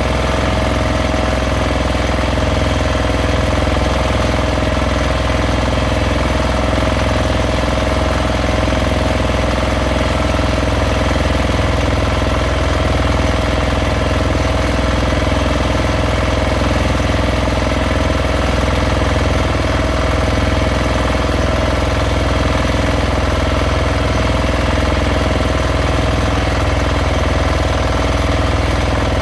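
Fishing boat's engine running steadily at constant speed.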